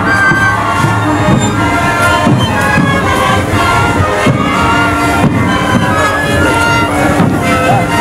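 Sikuri ensemble playing: many siku panpipes sounding held, breathy notes together over beating bass drums, with crowd cheering.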